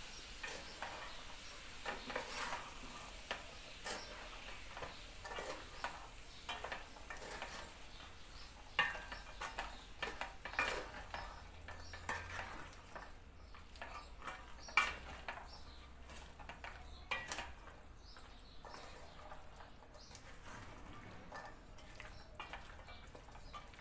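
A utensil stirring and scraping in a pot of beans frying with a faint sizzle. The scrapes and clinks come irregularly, the loudest about 9, 11, 15 and 17 seconds in.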